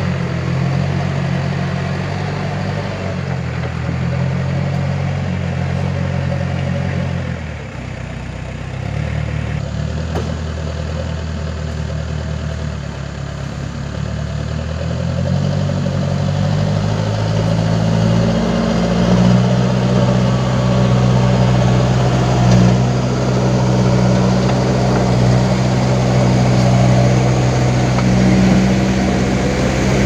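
Case 580 backhoe loader's diesel engine working under load as it tows a loaded dump truck through deep mud. The engine note changes pitch several times, then climbs and grows louder about halfway through and holds there.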